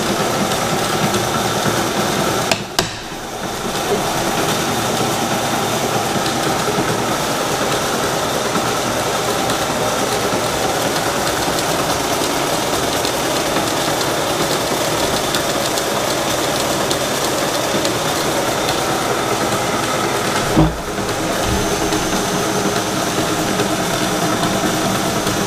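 Old horizontal milling machine running, its electric motor and hydraulic pumps giving a steady mechanical whir with several steady tones. The hydraulic table does not move, jammed by plungers stuck in the valve block. A sharp click with a brief drop in the sound comes about three seconds in and again near twenty-one seconds.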